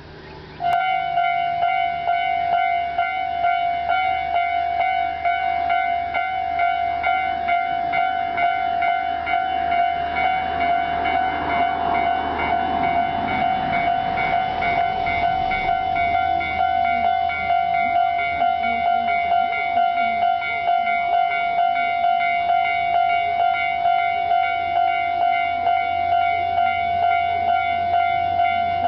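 Japanese electronic level-crossing alarm starting under a second in and ringing in a steady, even repeating tone, an unusual variant of the standard crossing sound. A train passes, its rumble swelling and fading in the middle, while the alarm keeps ringing.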